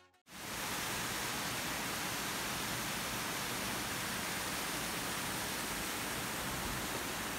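Water of a small waterfall rushing over sandstone rock ledges: a steady, even rush of falling water that starts abruptly a moment in.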